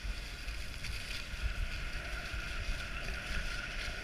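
Steady hiss of a dog sled gliding over packed snow behind a running dog team, with wind rumbling on the microphone.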